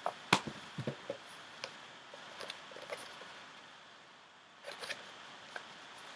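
Books being handled: a sharp knock about a third of a second in, then scattered light taps, clicks and rustles as a paperback is picked out and turned over in the hands.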